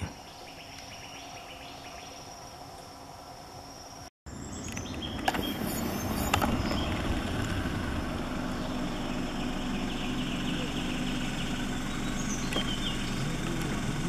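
Steady outdoor ambience at a forest stream pool: a low hum and hiss with faint steady high tones, a few soft clicks and a couple of faint high chirps. The sound cuts out briefly about four seconds in and comes back slightly louder.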